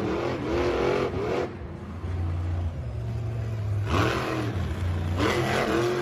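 Monster truck engines running with a steady low drone, revved up and down several times: in the first second or so, again about four seconds in, and near the end.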